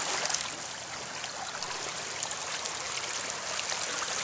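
River water running and rippling over stones, with small splashes here and there.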